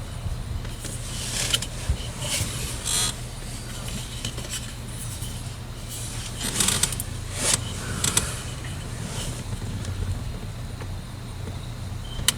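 Plastic shifter trim piece being handled and pressed down into the center console: scattered scrapes and light plastic clicks, over a steady low hum.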